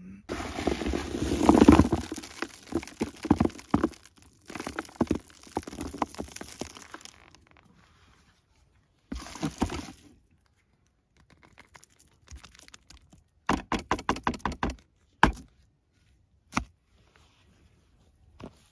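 Wet particle mix and groundbait being scooped from a plastic bucket and dropped into a carp bait boat's hopper, rustling and squelching, then a quick run of about ten sharp knocks past the middle.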